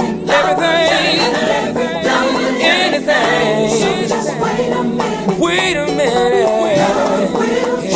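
Gospel choir music: layered voices singing, with vibrato, over a steady sustained backing.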